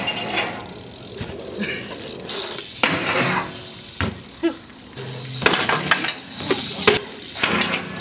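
BMX bike ridden on handrails and concrete: the rear hub's ratchet clicks as it freewheels, tyres rush over the ground, and several sharp clanks come from landings and the bike striking metal rails.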